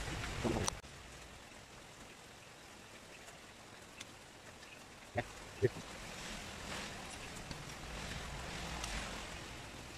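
Hands handling engine parts on a bare short block: a brief rustle and knock at the start, then a few light metallic clicks, one ringing briefly, over steady workshop hiss.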